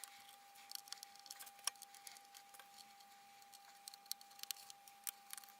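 Faint, scattered light clicks and ticks of a small precision Phillips screwdriver working the tiny screws out of a MacBook Pro's aluminium bottom cover. A faint steady tone sits underneath.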